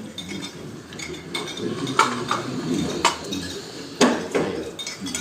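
Cutlery clinking against plates and dishes during a meal, a few sharp clinks about two, three and four seconds in over a continuous low background murmur.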